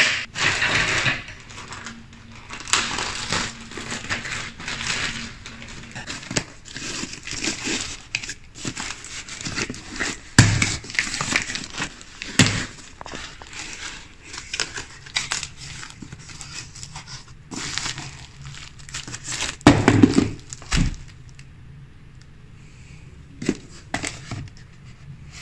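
Package being unboxed: a plastic courier mailer crinkling and tearing as it is opened, then a cardboard box being pulled open and handled. Irregular rustling throughout, with a few louder knocks.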